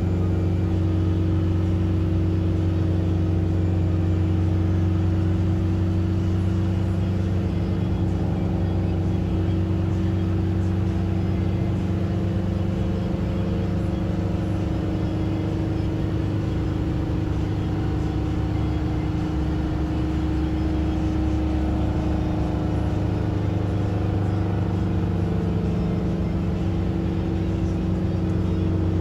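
Steady engine and road noise of a moving vehicle heard from inside the cabin, a low hum with tones that drift slightly in pitch.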